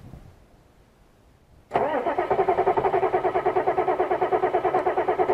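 Starter motor cranking the 1985 Ford F350's 6.9 IDI V8 diesel: a whine that pulses about ten times a second with the compression strokes, starting suddenly just under two seconds in. It stops abruptly after about three and a half seconds without the engine catching.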